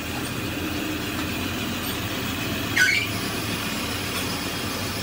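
Portable cylinder boring machine running with a steady mechanical hum, and a short metallic squeal rising in pitch a little past halfway.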